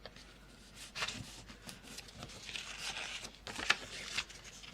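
Paper rustling and crinkling as cut pieces of patterned paper are handled and stuck down onto a journal page, with a few short scratchy rustles.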